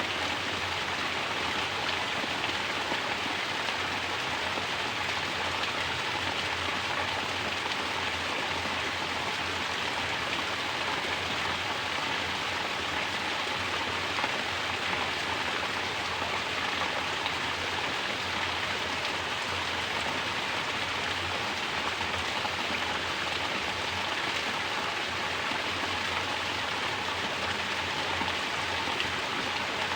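Mountain water pouring down steadily in a natural shower, a continuous even splashing.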